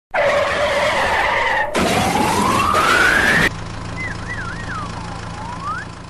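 A string of edited sound effects spliced together: a loud rush with a falling tone for about a second and a half, then a rising whine like a vehicle speeding up that cuts off abruptly about three and a half seconds in, followed by a quieter steady low hum with a swooping, wavering whistle over it.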